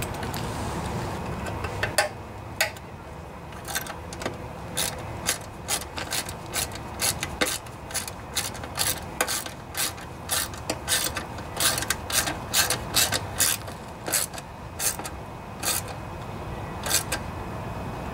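Hand ratchet wrench clicking in quick, uneven runs as it turns bolts on a Briggs & Stratton lawnmower engine.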